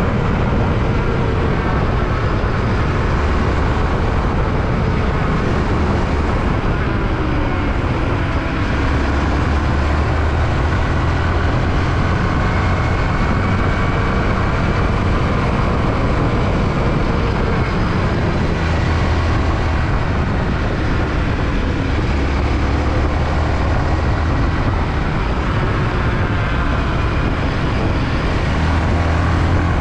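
Yamaha WR155R motorcycle's single-cylinder engine running while riding on the road, its pitch slowly rising and falling, under heavy wind rush and buffeting on the microphone.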